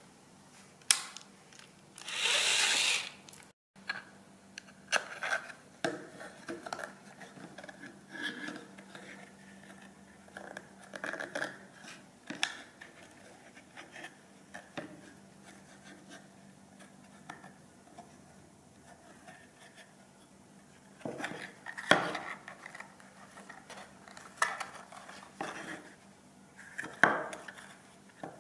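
A cordless drill runs for about a second, boring through a kydex sheath. After that come small scattered clicks and scrapes of hands handling the plastic sheath and threading cord through it, with one sharper click partway through.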